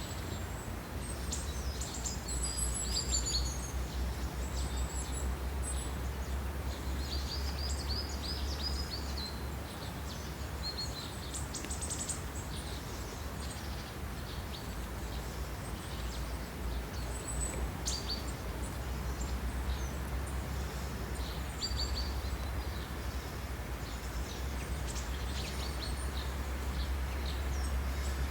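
Small birds chirping and trilling, short high calls scattered throughout, over a steady low rumble and an even background hiss.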